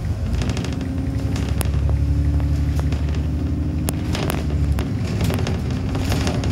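Inside a double-decker bus: the diesel engine running as the bus drives along, its note changing about half a second in and again near five seconds, with scattered rattles and clicks from the bodywork.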